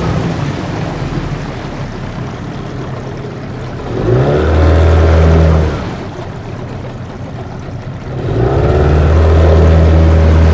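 Tohatsu 18 two-stroke outboard motor driving a small boat, with water rushing along the hull. Twice it rises in pitch to a louder run for about two seconds, then drops back to a lower, quieter speed.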